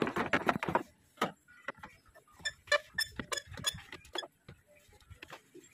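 Scattered short clicks and knocks of a rubber hose, clamp and plastic intake parts being handled in a car's engine bay, coming thickest about halfway through.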